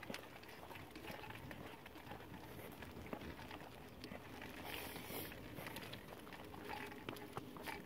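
Faint footsteps of a person and a golden retriever walking on a concrete sidewalk, heard as irregular light taps.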